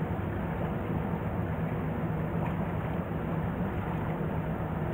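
Steady low drone of a departing car ferry's diesel engines, a constant hum carried across calm harbour water with an even background hiss.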